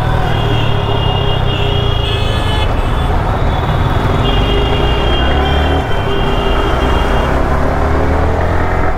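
Motorcycle riding through dense city traffic: the engine runs with a steady low rumble, and high vehicle horns sound twice, for a few seconds each time.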